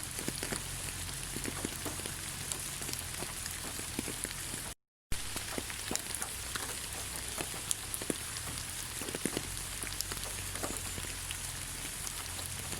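Steady rain falling on leaves: an even hiss with many separate drops tapping. A brief cut to silence comes about five seconds in.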